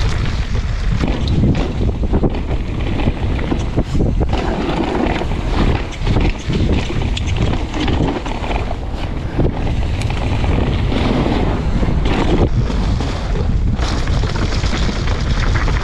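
Mountain bike riding fast down a loose gravel downhill trail: wind buffeting the action camera's microphone, with the tyres rumbling over stones and the bike rattling over bumps.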